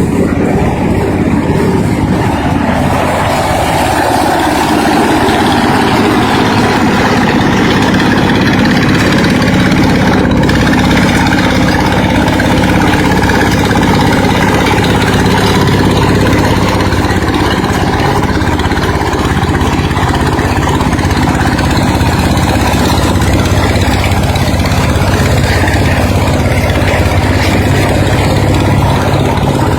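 Engine-driven corn sheller running steadily and loudly, with a mid-pitched tone that falls over the first few seconds before settling.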